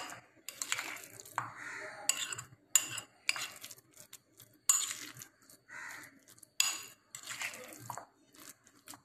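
Steel spoon stirring mashed potato in a glass bowl, clinking and scraping against the glass in irregular strokes, about one or two a second.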